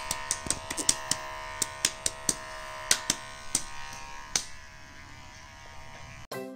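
Becko cordless pet hair clippers running with a steady electric buzz, broken by a dozen or so sharp clicks over the first few seconds. The buzz cuts off suddenly near the end, and a bright musical jingle starts.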